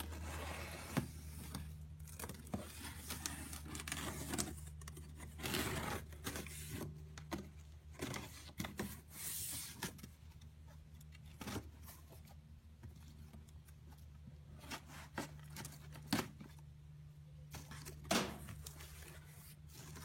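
Cardboard shipping box being opened by hand: tape cut and torn, with irregular scraping and rustling of the box and its packing and scattered sharp knocks.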